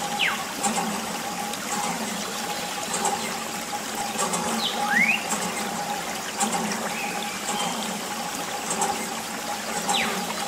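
Thin stream of water trickling and splashing onto a small plastic toy truck, rinsing off wet sand. A faint steady hum runs underneath, with a few short falling whistles.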